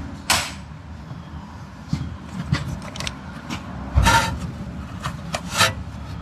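Clunks, clicks and short metallic rattles of car parts and tools being handled, with one heavier knock about four seconds in.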